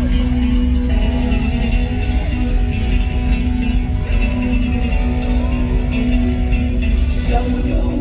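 Live band playing the instrumental passage of a rock song, with a steady beat under sustained notes and no singing.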